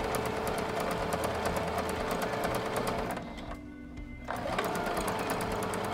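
Singer electric sewing machine stitching through fabric at speed, a rapid run of needle strokes. It stops for about a second a little past the midpoint, then starts stitching again.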